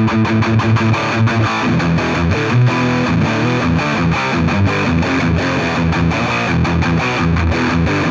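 Electric guitar played through a Donner Alpha Force pedal's high-gain distortion channel into a Fender Twin Reverb amp: a heavy distorted riff that opens with fast repeated low notes.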